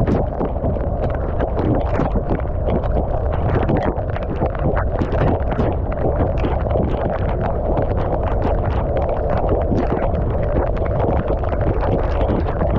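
Steady wind rush over the microphone of a camera on a moving road bike, with rolling road noise and many small crackles throughout.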